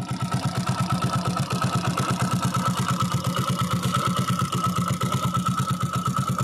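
Hero Splendor Plus single-cylinder four-stroke motorcycle engine idling, an even, quick putter of about eight beats a second with a steady high tone above it.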